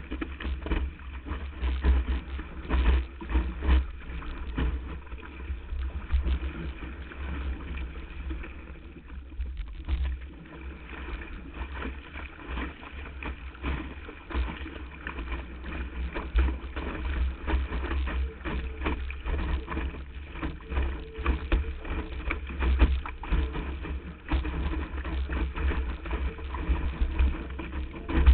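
Wind buffeting the microphone and water rushing and splashing against a windsurf board as it planes, heard from a GoPro Hero mounted on the board's nose. A steady low rumble is broken by frequent sharp slaps and gusts.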